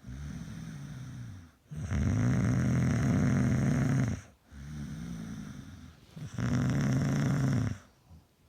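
A sleeping person snoring: two loud, pitched snores, each a second or two long, alternate with quieter breaths. The snoring stops just before the end.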